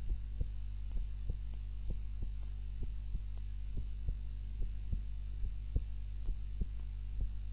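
Heartbeat of a woman asleep on her back, beating steadily in lub-dub pairs at roughly 65 beats a minute, over a steady low hum.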